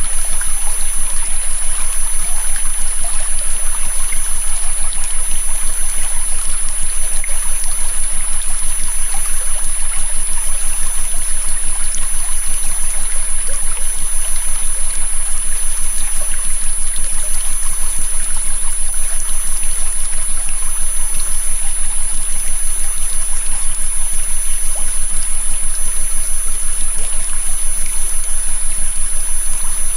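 River water flowing steadily, overlaid with steady electronic tones: a high-pitched whine and a low hum held unchanged throughout.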